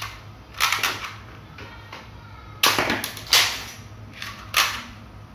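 Blue plastic toy revolver making four sharp cracks as it is loaded with a rod dart and fired, the second and third close together.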